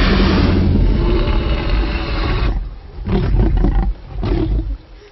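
Film sound effect of a Tyrannosaurus rex roaring: one long, loud roar, then two shorter bursts.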